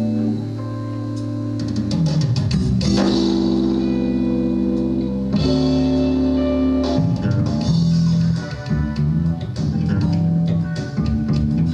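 A band playing instrumental music on electric guitar and bass guitar: held chords for the first several seconds, then a busier, rhythmic part from about seven seconds in.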